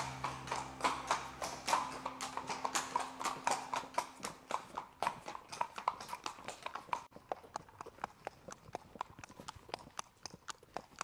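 A pony's shod hooves clip-clopping at a walk on hard ground, several strikes a second. The strikes become fainter after about seven seconds, as the pony moves from the stable aisle out onto open tarmac.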